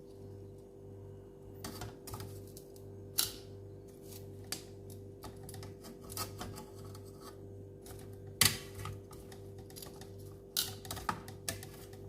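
Irregular sharp clicks and clacks of kitchen utensils against cookware while pork is grilled, several strong knocks among lighter ones, over a steady low hum.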